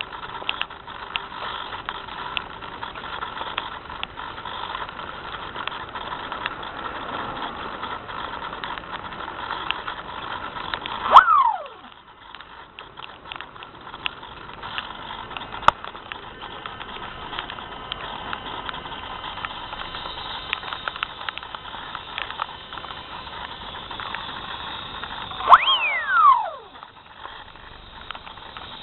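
SpyHawk FPV plane's electric motor running steadily against a noisy rush of wind. Twice, about eleven seconds in and again near the end, it surges to a loud peak and then winds down in a quickly falling whine.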